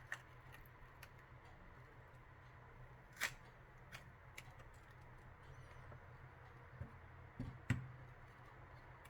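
Faint, scattered clicks and taps of a Samsung Galaxy Folder 2 flip phone's small plastic and metal parts being handled and pried during disassembly. The loudest come about three seconds in and near eight seconds, over a low steady hum.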